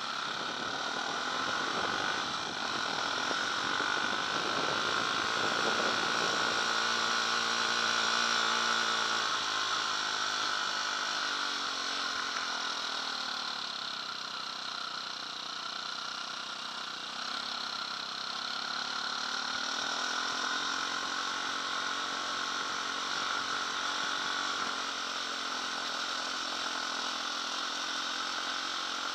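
KTM 250 dirt bike engine running under way, its pitch dropping in the middle and climbing again as the throttle is rolled off and back on.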